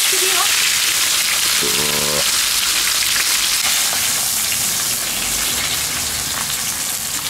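Whole fish sizzling as they fry in hot oil in a pan on a wood-fired stove, a steady dense spitting hiss that eases slightly near the end.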